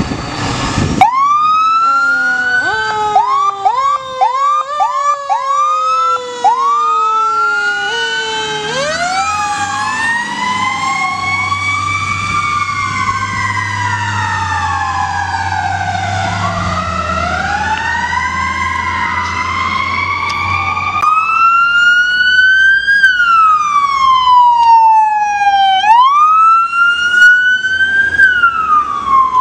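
Fire apparatus electronic sirens responding: rapid yelping at first, then long overlapping wails rising and falling, with a low engine hum underneath in the middle. From about two-thirds of the way in, a single siren wails up and down in slow cycles of about five seconds, as the utility SUV pulls out.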